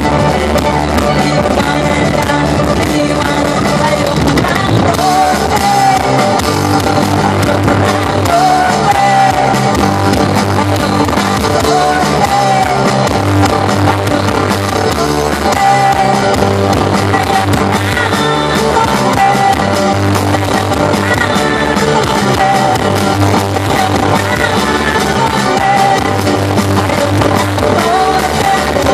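Live rock band playing a cover song: a woman singing into a microphone over electric guitars and a drum kit, amplified through PA speakers.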